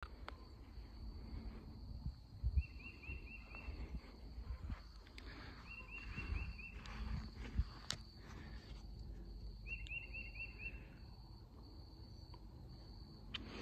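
Faint rural outdoor ambience: a steady high insect buzz, with a short rapid trill of about five notes repeating every three to four seconds. Soft low thumps of footsteps on grass and camera handling run underneath.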